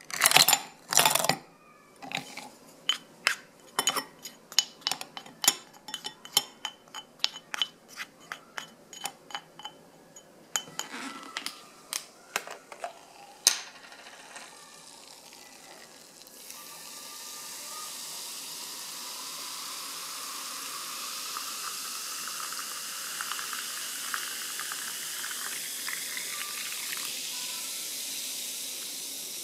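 A brief loud noise at the start, then ice cubes dropped into a stemmed glass of orange slices, many sharp clinks over about twelve seconds. From about sixteen seconds in, sparkling water is poured over the ice and fizzes, a steady hiss with a fine crackle of bursting bubbles that slowly swells.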